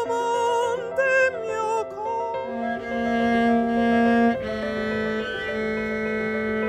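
Operatic soprano singing with wide vibrato, giving way about two seconds in to long, low bowed cello notes.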